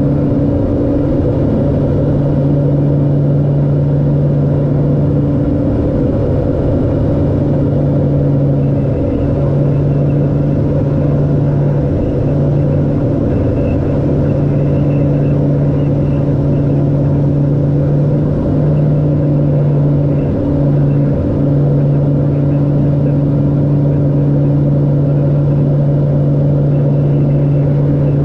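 LET L-410's twin turboprop engines and propellers droning steadily in descent, heard from inside the cockpit. A strong low hum with a fainter higher hum above it, wavering and dipping briefly a few times in the middle.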